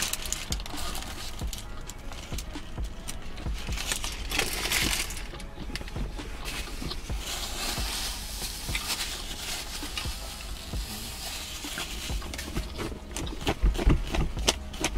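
Paper food wrapper crinkling and rustling in the hands as a fast-food burger is unwrapped and eaten, with irregular crackles and mouth sounds of biting and chewing.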